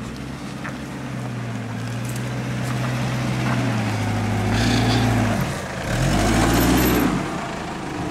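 Mitsubishi Pajero engine pulling under load off-road, its note slowly rising, then revved up hard twice, around five seconds in and again near seven seconds, each time with a loud rush of noise.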